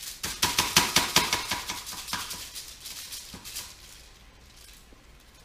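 Metal spoons clicking and scraping in quick succession as cookie dough is portioned onto a foil-lined baking sheet, busiest for the first two seconds, then a few scattered clicks that die away.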